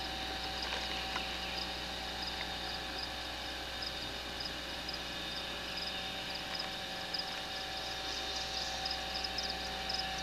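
A steady chorus of rapid, evenly repeating high-pitched chirps from swamp wildlife, over a low steady hum.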